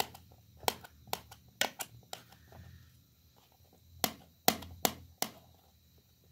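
Kitchen knife clicking against a metal pizza tray as it chops a block of cheese into small pieces: sharp taps in two bunches, about five in the first two seconds and four more around the fifth second, with a lull between.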